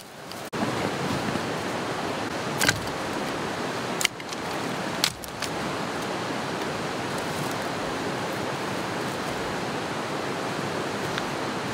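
Steady rush of flowing river water, with three sharp knocks, about two and a half, four and five seconds in.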